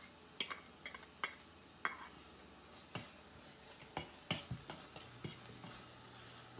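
Steel spoon and ladle clinking and scraping against an aluminium pan as ginger-garlic paste is knocked off the spoon and stirred into sautéing onions: irregular sharp clicks about once or twice a second over a faint sizzle.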